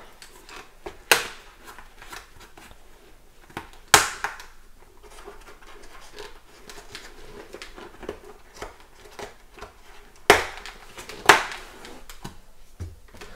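Motorcycle helmet lining being pulled out by hand: four sharp pops as its fasteners let go, the last two about a second apart, over soft rustling of fabric and foam.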